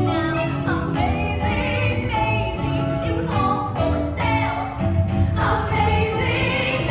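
Women's voices singing a musical theatre song over instrumental accompaniment with a steady bass.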